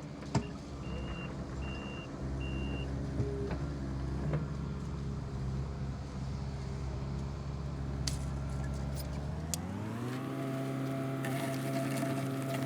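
Excavator's diesel engine running steadily, then revving up about ten seconds in and holding at the higher speed. Three short high beeps sound about a second in, with a few knocks along the way.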